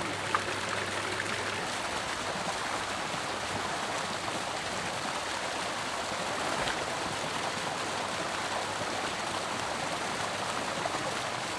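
Spring water gushing steadily from an inlet into a swimming pool, splashing onto the surface.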